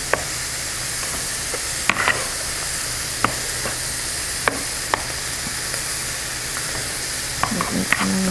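Marinated pork riblets sizzling with a steady hiss on an electric tabletop grill, broken by a series of sharp clicks from kitchen tongs picking up and placing the pieces.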